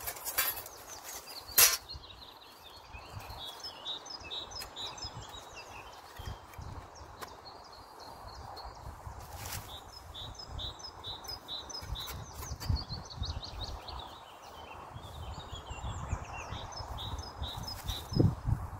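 Small woodland birds singing in repeated high chirping phrases, with a few sharp metallic clicks, the loudest about a second and a half in, as the steel panels of a folding wood-burning camping stove are handled and fitted together.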